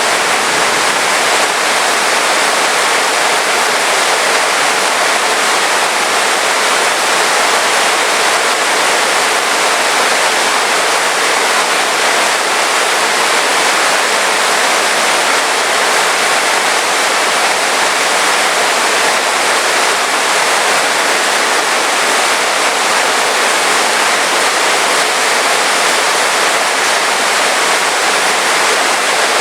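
Heavy rain pouring steadily: a dense, even hiss with no breaks or single loud events.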